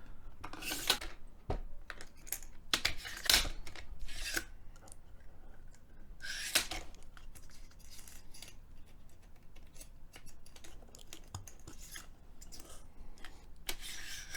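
Staple racks with their plastic retainers being handled and slid into the magazine of a Milwaukee M12 cable stapler: irregular rustles, scrapes and sharp clicks of plastic and metal. The loudest clusters come about a second in, around three and a half seconds, and around six and a half seconds.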